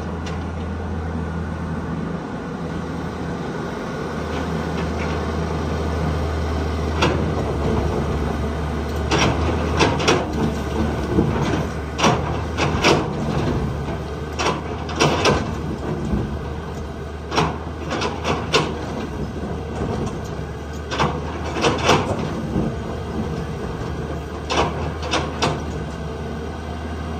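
Tata Hitachi 200 hydraulic excavator's diesel engine running steadily while its bucket digs into rock and soil. From about seven seconds in there are many sharp clanks and knocks of the bucket striking and scraping stone, coming irregularly, often two or three close together.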